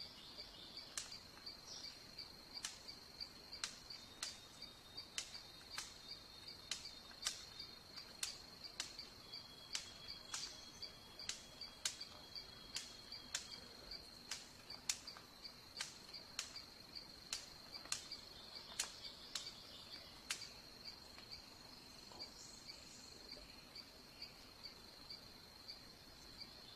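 A steady, high, finely pulsed insect trill, like a cricket chorus. Over it runs a series of sharp clicks, a little more than one a second, that stop about twenty seconds in.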